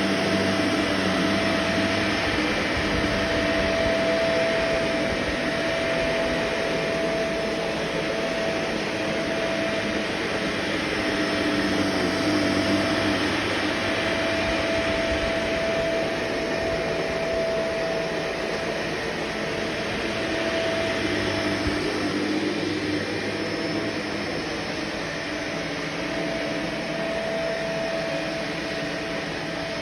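Vacuum cleaner running steadily, its motor tone wavering a little in strength and pitch.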